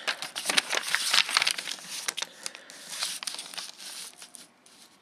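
Paper pages of an instruction booklet being turned and handled, crinkling and rustling in a run of quick crackles that thins out and quietens near the end.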